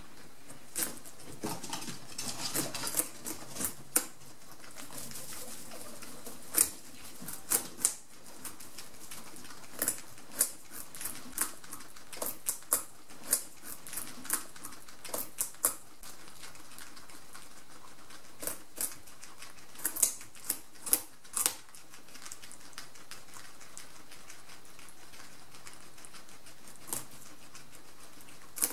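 Guinea pigs gnawing and chewing on a whole pumpkin: irregular crisp crunching clicks, often several in quick succession, thinning out to only a few in the last several seconds.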